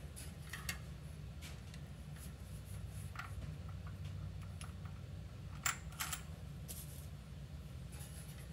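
Light metallic clicks and taps of sprocket bolts and mounting pieces being handled and started by hand, with two sharper clicks a little past halfway, over a low steady hum.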